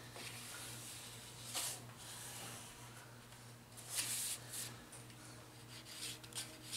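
Pencil scratching along the edge of a template onto a 2x6 board, tracing the outline in a few short strokes, over a steady low hum.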